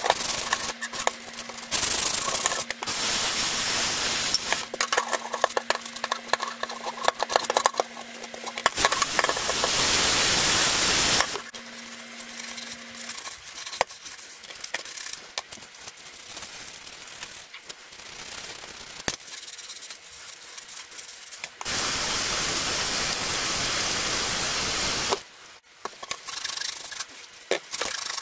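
Bicycle tube part scrubbed in a stainless steel sink: a brush scrubbing with quick strokes for the first several seconds, then a soapy sponge rubbing more quietly. Two stretches of steady rushing noise break in, one about ten seconds in lasting two seconds and one past twenty seconds lasting about three.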